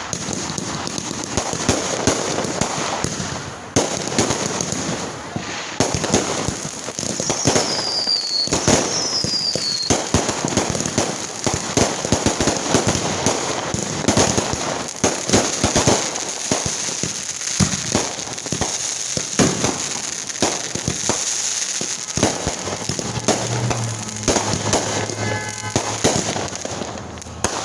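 Fireworks going off in rapid succession: dense crackling and popping with many sharp bangs, and two short falling whistles about a third of the way through.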